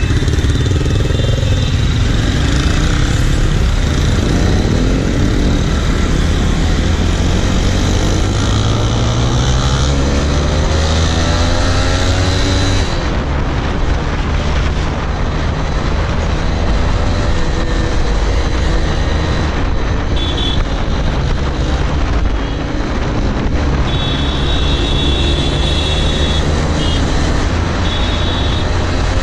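Motorcycle with an aftermarket exhaust ridden at speed: the engine note climbs as it accelerates and falls back at each gear change, then runs steadily at cruising speed. A constant rush of wind and road noise runs underneath.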